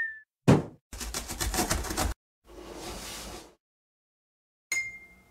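Cartoon sound effects for a box drop: a loud thud, then a rapid rattle of about ten knocks a second lasting just over a second, a softer swish, and a short bright ding near the end.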